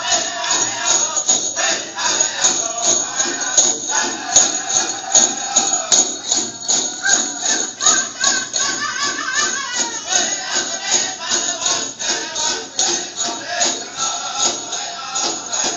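Powwow-style drum song for a prairie chicken dance: a steady, fast drumbeat with singing voices, and a bright jingling in time with the beat.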